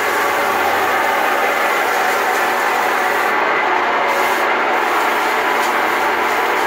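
RIDGID K-60 sectional sewer machine running steadily, its motor turning the drain cable inside a clogged areaway drain line.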